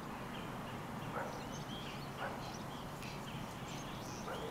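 Small birds chirping on and off in short, high calls over a steady low background rumble, with a few soft crunching sounds.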